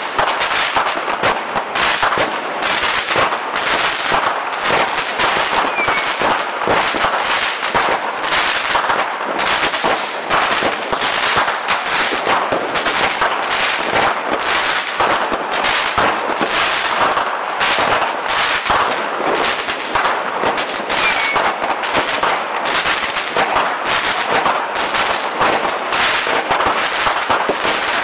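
Fireworks going off in a dense, continuous barrage of rapid sharp cracks and bangs, several a second.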